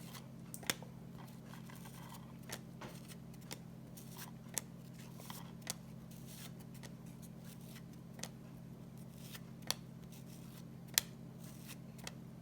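A cello-wrapped pack of trading cards being carefully opened and handled: sparse, irregular clicks and soft crinkles of the plastic wrapper and card stock, over a faint steady low hum.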